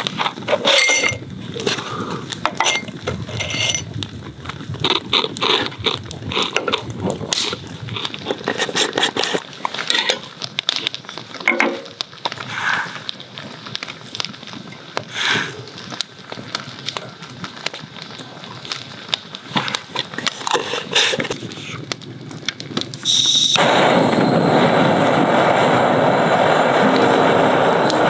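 Clicks, taps and light rattles of handling as potato sticks are tipped into a glass and wood smoking chips are dropped into a wooden glass-top smoker. About 23 seconds in, a gas torch flame lights the chips with a sudden, loud, steady hiss.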